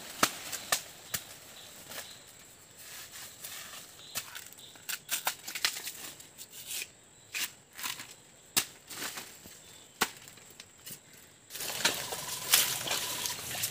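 Irregular sharp chops, cracks and snaps of plant stalks and bamboo being cut and broken. Near the end, a louder stretch of rustling footsteps through wet undergrowth.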